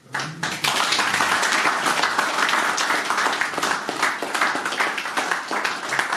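A small audience applauding with many hands, starting about half a second in and thinning out near the end.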